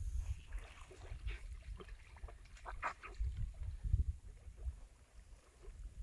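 Wind buffeting the microphone in gusts, over a shallow river's water splashing and trickling in short bursts.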